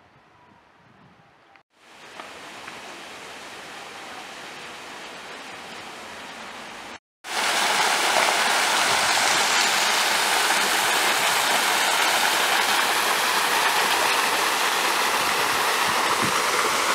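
Water falling over a stone wall in a small garden waterfall, a steady rushing splash. It comes in suddenly and loud about seven seconds in, after a softer, quieter rushing stretch.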